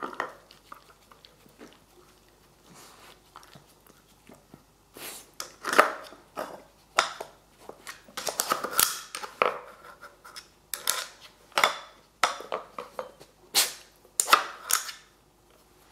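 Plastic sliders and cups of a wooden dog puzzle board being nudged by a Shiba Inu's nose and paws: irregular clacks and scrapes of plastic on wood, sparse at first and coming in quick clusters from about five seconds in.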